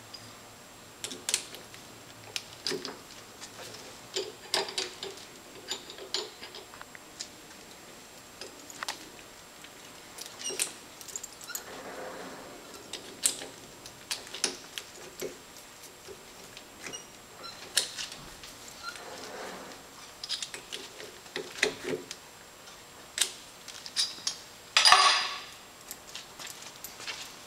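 Scattered metallic clicks and clanks from a lathe's three-jaw chuck and chuck key being worked by hand, with a louder clatter near the end.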